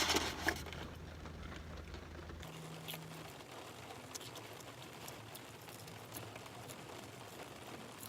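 Faint close-up chewing and mouth smacking while eating fries, with soft scattered clicks and a brief louder noise right at the start. A steady low hum stops about two and a half seconds in.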